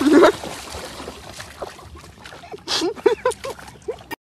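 A puppy splashing into the shallow water at a lake's edge, then a quick run of about five short high-pitched voice sounds near the end.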